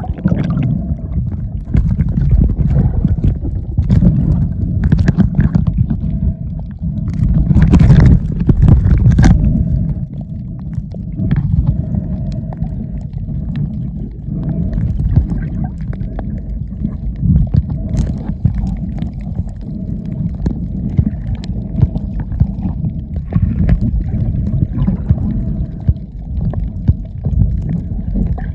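Muffled underwater rumble and water movement picked up by a submerged camera, with a faint steady hum, scattered sharp clicks, and louder surges about four and eight seconds in.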